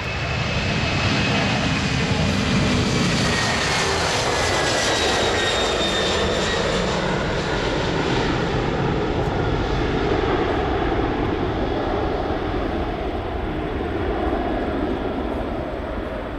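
Airbus A310-308 twin-jet airliner's turbofan engines at takeoff power as it rolls past: a loud, steady jet rush with whining tones that fall in pitch as it goes by.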